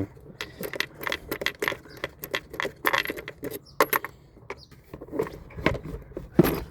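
Irregular small clicks and clinks of hose clips and parts being worked loose by hand in a car's engine bay, many quick ticks with no steady engine sound.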